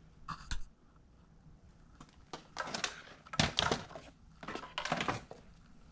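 Short knocks, scrapes and clatters of objects being handled and moved about on a concrete garage floor, in a few clusters, the loudest about three and a half seconds in.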